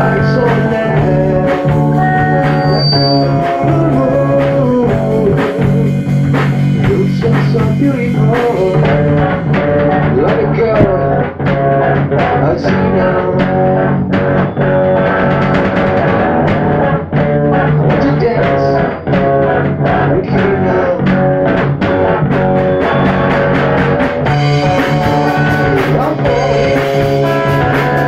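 Rock-funk band playing an original song in rehearsal: electric guitar over a drum kit, loud and continuous.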